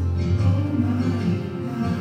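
Recorded gospel song playing, with guitar and a strong, steady bass line, and a singing voice moving above it.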